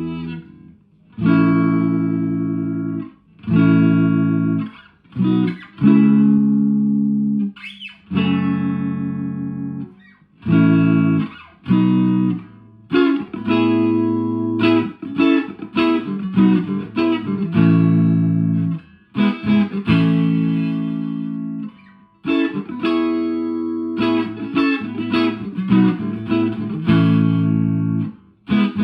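Electric guitar through a valve amp: a 1983 Fender Squier JV Telecaster into channel 1 of a 1963 Selmer Thunderbird Fifty, heard through 1970s Celestion Greenback speakers. Chords are struck and left to ring for a second or two each, with short gaps between them. From about halfway the playing turns busier, with quicker chords and riffs.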